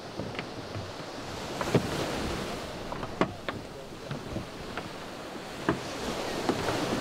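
Sea surf breaking and washing on a sandy beach, with wind on the microphone. Sharp clicks or knocks come at irregular moments over it.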